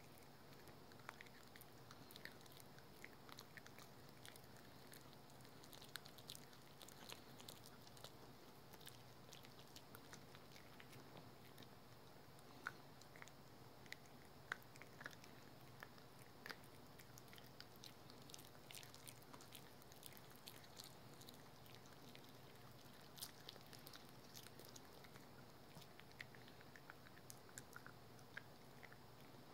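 Small dog chewing a dental chew stick: faint, irregular crunching and clicking bites throughout, over a low steady room hum.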